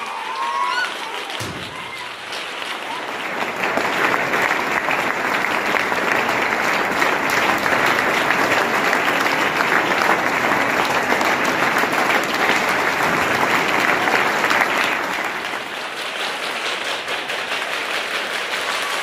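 Crowd clapping in welcome, a dense patter of many hands that builds about three seconds in and eases off a little near the end.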